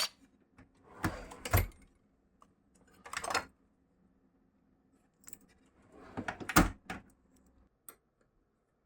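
Several short bursts of metallic clattering and knocks, the loudest near the end, like hand tools being picked up and handled.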